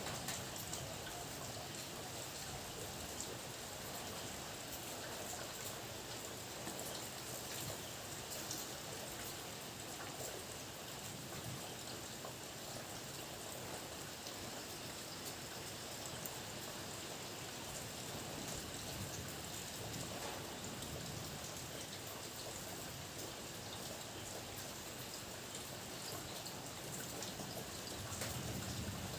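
Steady rainfall, with many individual drops striking a hard surface heard as fine ticks over an even hiss; no thunder.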